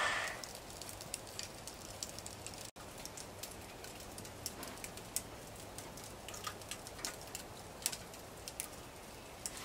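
Chunks of wood burning in a metal fire pit, crackling quietly with scattered sharp pops.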